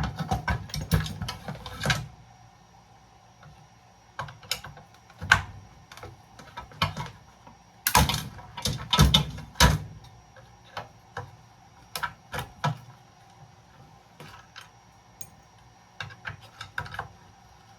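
Irregular metal clicks, ticks and clanks from hand tools and loose parts as a breaker box is taken apart for scrap. The clicks come in quick clusters, the busiest about a second in and again around eight to ten seconds in.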